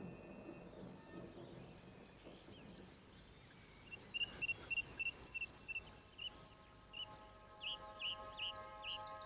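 A run of short, high bird-like chirps, about three a second, starting about four seconds in and growing louder and sweeping upward near the end. Before them a low rumble fades away, and sustained music chords come in at the very end.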